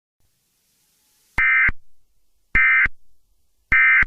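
Emergency Alert System end-of-message data burst (SAME "NNNN" signal): three identical short, shrill electronic warbling bursts about a second apart, each with a brief trailing echo, marking the close of the alert.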